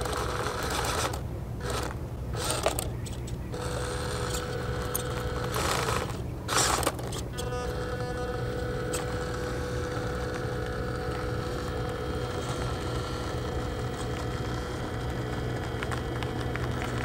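Small electric motor and gearbox of a 1/18-scale FMS FJ Cruiser RC rock crawler whining steadily as it crawls up rock. Louder rough bursts, likely tyres and chassis scraping on the rock, come about a second in and again around the middle.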